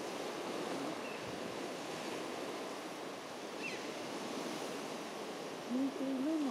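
Small waves breaking and washing up over shingle at the water's edge, a steady surf hiss with some wind on the microphone. Near the end a short, low voice is heard.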